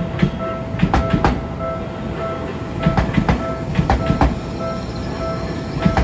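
Japanese level-crossing alarm ringing with an even, fast repeating tone while a train passes, its wheels clacking over the rail joints in quick clusters of beats.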